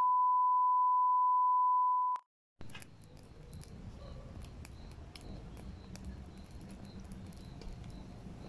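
A steady single-pitched electronic beep that cuts off abruptly about two seconds in. After a short silence comes low outdoor background noise with scattered small sharp crackles of a campfire.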